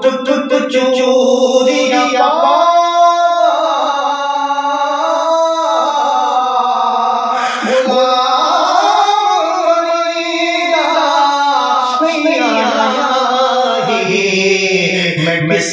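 A man singing solo in Punjabi, holding long drawn-out notes that slide up and down in pitch.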